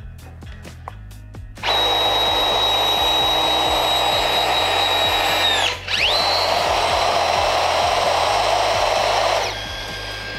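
Rothenberger ROMAX NANO electromechanical press tool running a press cycle on a fitting with an SV18 iJAW jaw: a steady motor whine starts about two seconds in, cuts out for a moment around the middle, then resumes and drops to a quieter run near the end.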